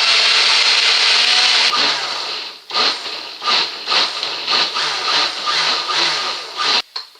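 Electric blender running on its high puree setting, blending cooked-down pineapple into a puree. It runs steadily at first, then surges and dips about twice a second, and cuts off suddenly near the end.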